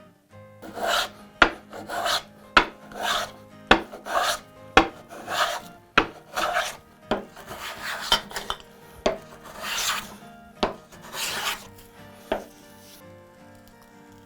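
Wood being worked by hand with a rasp or file: rhythmic back-and-forth strokes, about one and a half a second, with sharp knocks between some of them, stopping near the end. Faint background music runs underneath.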